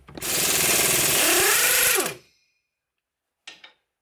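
Impact wrench hammering for about two seconds as it loosens the steering knuckle-to-strut pinch bolt, its pitch wavering, then stopping. A faint click follows near the end.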